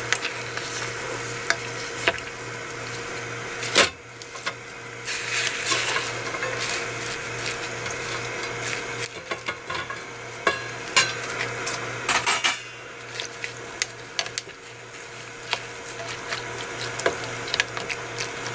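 Wooden spatula stirring and pressing napa cabbage leaves into boiling water in a stainless steel pot, with scattered knocks of the spatula against the pot, loudest about 4 and 12 seconds in. A steady low hum runs underneath.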